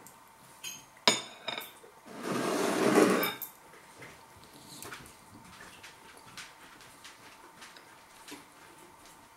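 A metal fork clinks against a ceramic bowl three times, sharpest about a second in, then the bowl scrapes across the kitchen worktop for about a second as it is pushed away.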